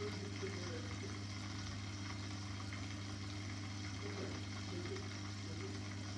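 Aquarium pump running with a steady low hum, and water trickling in the tank.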